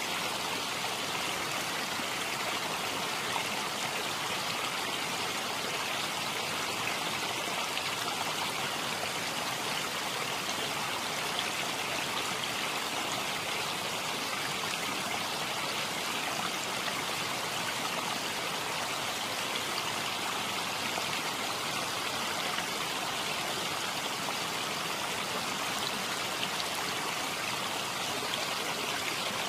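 A steady, even rushing sound like flowing stream water, with no changes or separate events.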